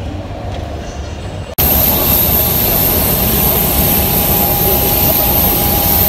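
Quiet indoor hum for about a second and a half, then a sudden jump to the loud, steady noise of a turboprop airliner's engine running close by, with a high turbine whine over it.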